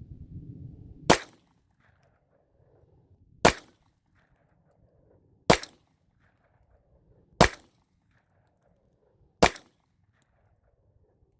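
Smith & Wesson M&P9 9mm pistol firing five single shots, evenly spaced about two seconds apart in slow, deliberate fire, loaded with 115-grain Federal white-box ammunition.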